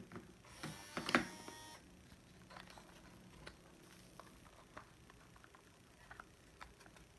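Hands working Play-Doh and handling plastic toy tools: soft scattered clicks and taps, with a brief scrape or rustle about a second in and a sharper click at the end.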